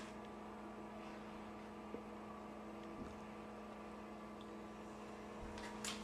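A steady low electrical hum, with a few faint clicks.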